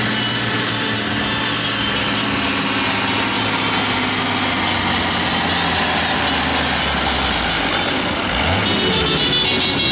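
Red International Harvester farm tractor's diesel engine running hard at full load while dragging a tractor-pulling sled. Near the end a high whistle falls away as the tractor slows to a stop at the end of its pull.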